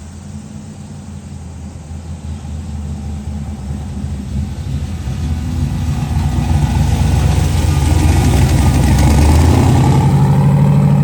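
Car engine running and accelerating, growing steadily louder throughout, with its pitch shifting about two-thirds of the way in.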